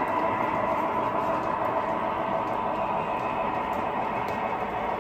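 O scale model freight train running past, led by a Florida East Coast diesel locomotive: a steady rolling noise of wheels and motor on the track, with a high whine that eases off slightly.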